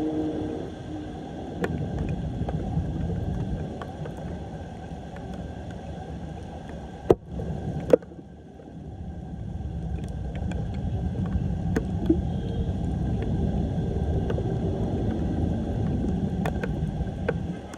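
Floodwater running into a cleared street storm drain, a steady rushing with some gurgling. There are two sharp knocks, about seven and eight seconds in.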